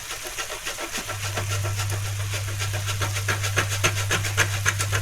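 Parmesan cheese being grated over the pasta: quick rasping strokes that come faster and more regularly toward the end. A steady low hum starts about a second in underneath.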